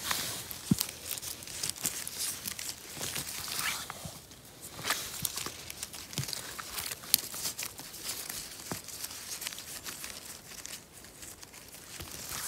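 Close rustling, crinkling and sharp snapping of moss, dead leaves and twigs as a gloved hand picks mushrooms from the forest floor, in a dense run of short clicks and rustles.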